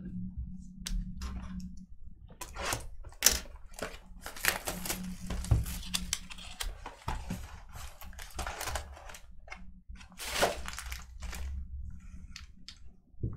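Irregular clicks, taps and light rustling from handling cardboard trading-card hobby boxes and foil-wrapped card packs, over a low steady hum.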